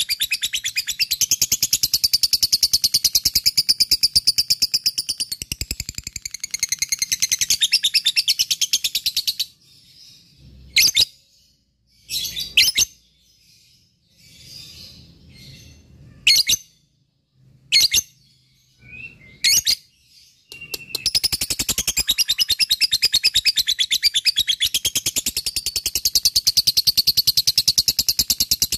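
Lovebird ngekek: a long, rapid, evenly repeated high chattering trill. It breaks off about nine seconds in for a pause with a few single sharp chirps, then starts again about twenty-one seconds in.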